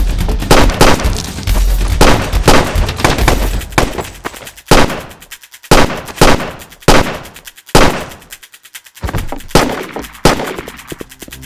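Handgun gunshot sound effects: a quick run of shots in the first few seconds, then single shots spaced roughly a second apart, each with a short echoing tail.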